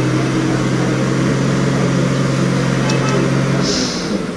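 A heavy goods truck's diesel engine running under load in a steady drone as the truck pulls through deep mud. A little before the end the engine note drops and a short burst of hissing air follows.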